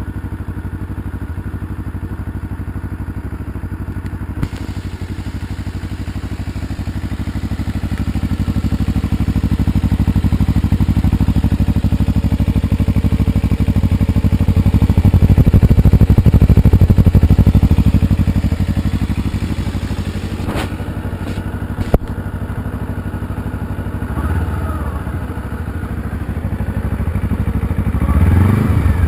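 Warmed-up Kawasaki Ninja 250R parallel-twin engine idling through its exhaust, a steady rapid pulsing that grows louder through the middle and then eases back. A few sharp clicks and a short rise in pitch come near the end.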